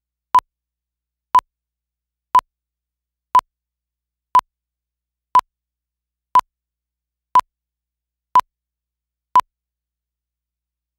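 Film-leader countdown beeps: ten short, identical beeps of one steady pitch, one each second, counting down to the start of the picture.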